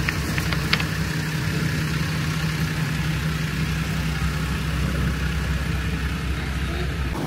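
Vehicle engine idling steadily, a constant low hum, with a few faint ticks in the first second.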